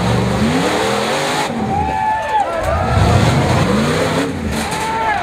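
Car engines revving up and down in repeated rising and falling glides, with tire squeals about two seconds in and again at the end.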